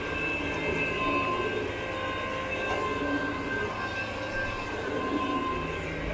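Counter-rotating brush (CRB) carpet machine running steadily, a motor whine with several steady high tones over the rumble of its brushes scrubbing the carpet. This is the agitation of pet treatment into the pile before extraction.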